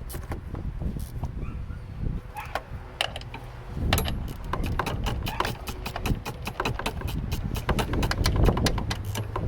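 13mm ratchet spanner clicking as it nips up the strut top mount nuts: scattered clicks at first, then a fast run of clicks from about four seconds in.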